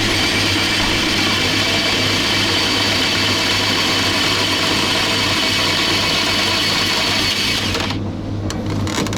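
Electric drain-cleaning machine spinning its steel spiral cable to clear a blocked pipe: a steady motor whine that cuts off about eight seconds in, followed by a few sharp clicks.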